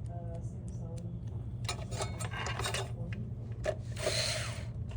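Small sharp clicks and then a short rasping scrape from hand work on small metal parts and screws, over a steady low hum.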